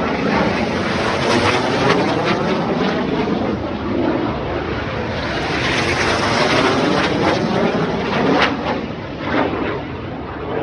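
Snowbirds CT-114 Tutor jets, each with a single turbojet, flying over in formation: a loud, rushing jet noise whose tone sweeps as they pass. It swells in the middle and eases off near the end.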